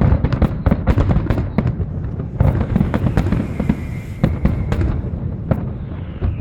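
Aerial fireworks going off in a rapid, dense barrage of loud bangs and crackling pops, several a second, with no let-up.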